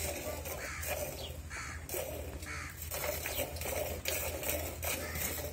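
Milk squirting from hand-milked teats into a steel bucket that already holds some milk: short hissing strokes, about two a second, as the hands alternate.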